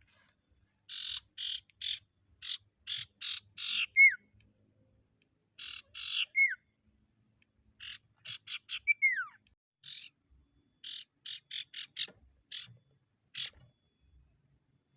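Sirtu (iora) singing: runs of short harsh rasping notes, three times ending in a clear downward-sliding whistle, the loudest of them about four seconds in.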